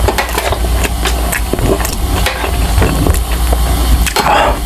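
Close-miked chewing with the mouth closed: wet mouth clicks and smacks, over a steady low hum. About four seconds in, a short breathy exhale.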